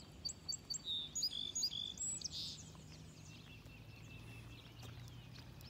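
A songbird singing a quick run of high chirps, about four notes a second, over the first two seconds or so, with a faint steady low hum underneath.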